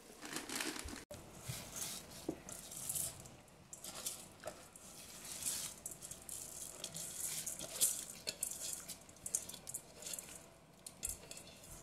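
Raw long-grain rice poured from a steel bowl into a pot of hot spiced water, the grains falling in repeated bursts with a soft hissing patter.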